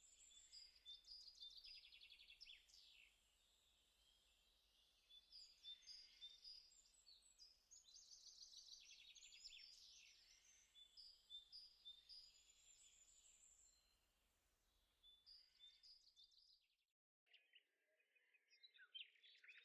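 Faint birdsong: bursts of high chirps and trills with short pauses between, thinning out in the last few seconds.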